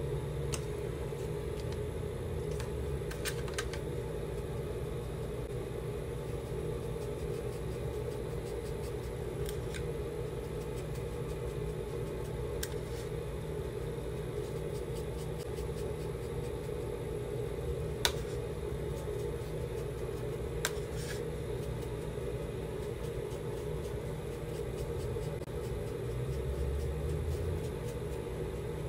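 A steady low hum, with a few brief clicks scattered through it, the sharpest about two-thirds of the way in.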